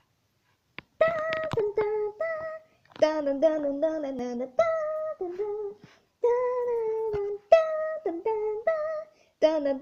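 A woman's voice singing a slow melody in long held notes that step up and down, with short breaks between phrases, starting about a second in.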